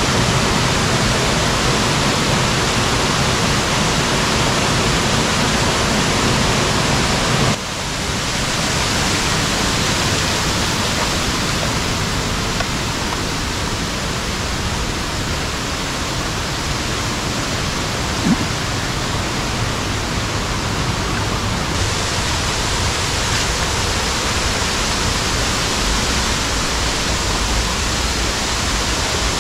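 Waterfall's water pouring down in a loud, even rush, broken by a momentary drop about seven and a half seconds in, after which it carries on slightly quieter.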